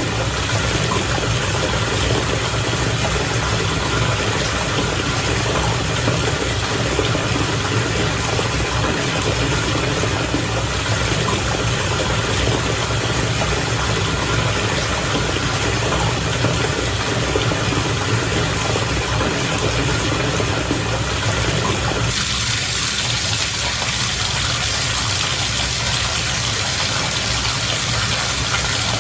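Bath water bubbling steadily, a continuous hiss of bubbles over a low hum. About 22 seconds in, the sound changes, getting thinner in the middle and brighter and more hissy.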